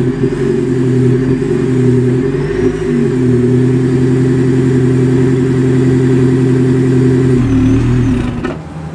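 Toyota Harrier hybrid's 2.5-litre four-cylinder engine held at raised revs, heard at the tailpipes of an aftermarket Noblesse quad-tip muffler: a steady, deep exhaust tone with a little low bass. The revs waver briefly about two and a half seconds in and drop away near the end.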